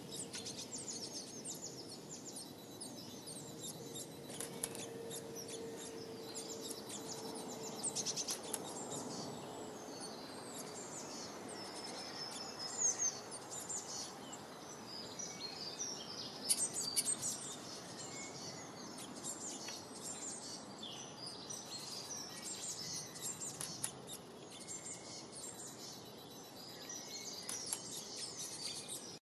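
Many small birds chirping and trilling at once, a dense chorus of short high calls over a steady background hiss.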